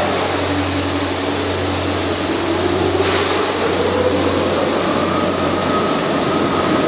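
Steady machinery noise with a low hum. A motor-like whine rises slowly in pitch around the middle.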